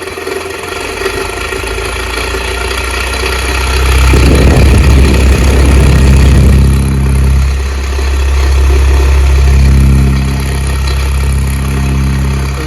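Farrata stand fan running with a loud, rough, grating hum that grows louder about four seconds in. The noise is a fault that the repairer puts down to either the wiring or the fan's shaft and bushing.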